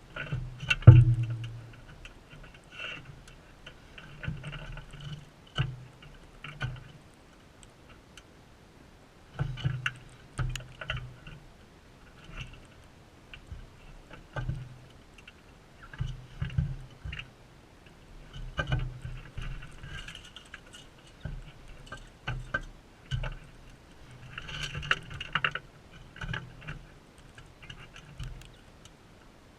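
Crimson rosellas at a seed feeder close to the microphone: irregular taps, clicks and dull knocks of beaks and feet on the feeder, with one loud thump about a second in.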